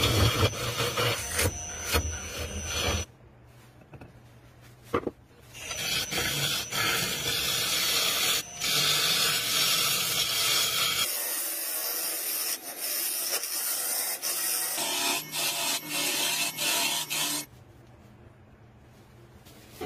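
A wooden blank spinning on a wood lathe while a turning tool cuts it, making a steady scraping hiss. The hiss drops away to quieter pauses a few seconds in and again near the end.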